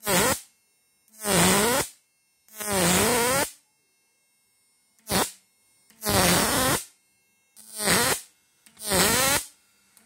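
Analog transistor fish-shocker inverter arcing as its output lead is touched to a metal plate: seven short buzzing sparks, each one's pitch dipping and rising again.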